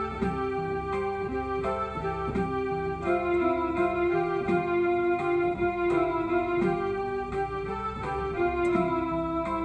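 Electronic keyboard music: sustained organ-like chords with a moving bass line, changing every second or so.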